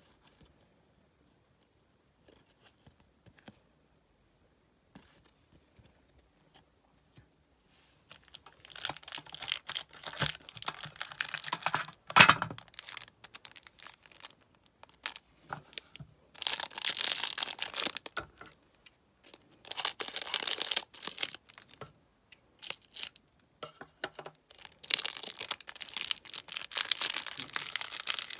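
Match Attax trading-card packet wrappers being torn open and crinkled in several separate stretches, after a quiet start with a few faint clicks.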